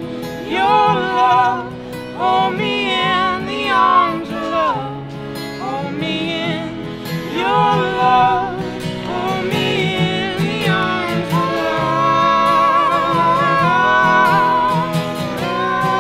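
Acoustic folk band playing, with sung vocals holding long wavering notes over plucked-string accompaniment.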